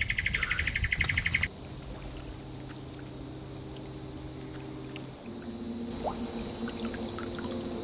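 A loud insect call pulsing rapidly, about a dozen beats a second, cuts off abruptly about a second and a half in. After that comes soft water trickling and splashing as a bass is eased back into a creek by hand, under low sustained background music.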